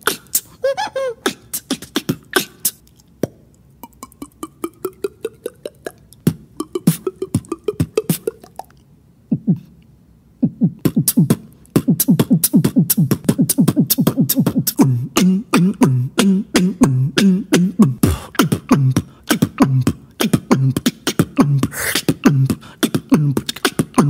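Beatboxer making sound effects with mouth and voice: strings of sharp rapid clicks and rising pitch glides, a short pause near the middle, then fast dense clicking over low pulsing tones.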